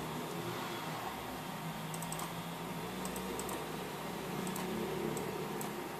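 Light, scattered keystrokes on a computer keyboard, starting about two seconds in, over a steady faint hiss.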